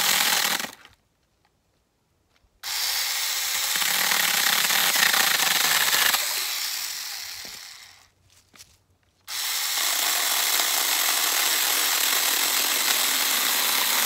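Tiny handheld chainsaw running and cutting a thin branch, in three runs with short pauses between. The second run fades out gradually as the chain spins down after the trigger is let go.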